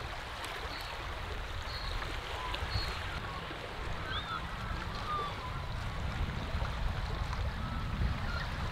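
Small waves lapping on a muddy lake shore, with wind rumbling on the microphone, growing stronger near the end. A few faint short bird chirps.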